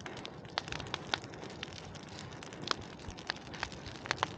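Large outdoor burn pile burning hard: a steady rush of flame with many irregular sharp crackles and pops.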